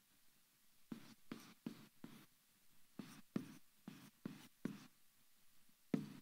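Faint squeaks and scratches of a dry-erase marker on a whiteboard, a run of short strokes as a diagram is drawn, with a pause before a last pair of strokes near the end.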